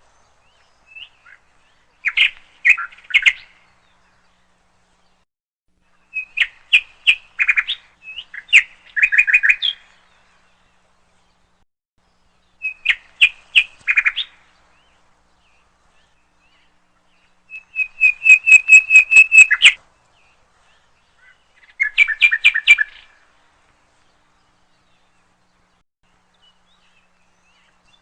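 A songbird singing in short bursts of rapid repeated chirping notes, about six phrases with pauses of a few seconds between them.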